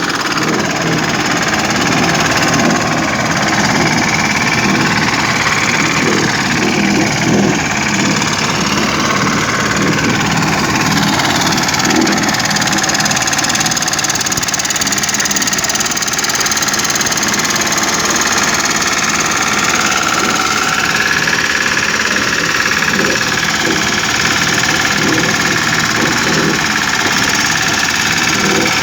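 Road roller's diesel engine running steadily with a dense knocking rattle.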